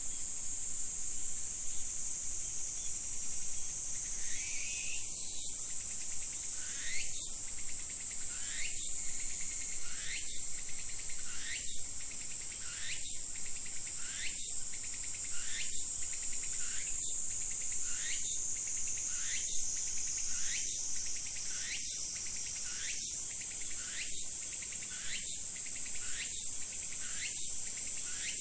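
Insect chorus: a steady, high-pitched shrill trill. From about four seconds in, a short rising call repeats roughly every second and a half.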